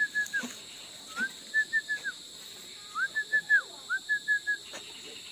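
Repeated high whistled calls, four phrases about a second apart, each a rising note, a few quick notes at one pitch and a falling note.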